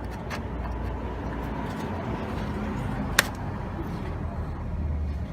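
A single sharp click about three seconds in, with a few fainter ticks, from hand work fitting a Porsche 914 clutch cable at the transmission end, over a steady low rumble of background noise.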